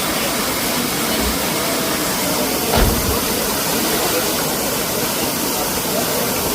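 Waterfall: a loud, steady rush of falling water, with one short low thump about three seconds in.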